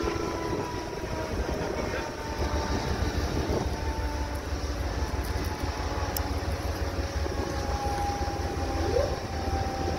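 Diesel locomotive idling at a standstill: a steady low engine rumble with a faint whine that drifts slowly down in pitch.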